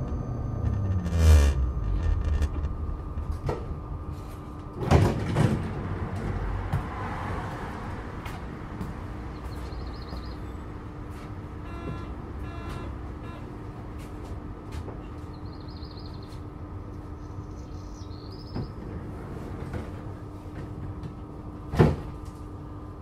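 Adtranz GT6N low-floor tram braking to a stop, the whine of its electric traction drive falling in pitch, then loud clunks from the sliding doors. While it stands there is a steady low hum, a few short high beeps, and a sharp thump near the end.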